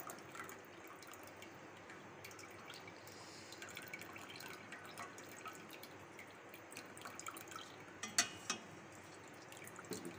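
Faint dripping and trickling of whey from freshly curdled milk curds through a mesh strainer into a steel bowl as the curds are pressed by hand, with a couple of sharper clicks about eight seconds in.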